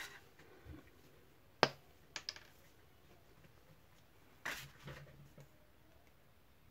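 Paper being handled and pressed down on a craft mat: a few sharp taps and clicks, the loudest about a second and a half in, then a short scrape about four and a half seconds in.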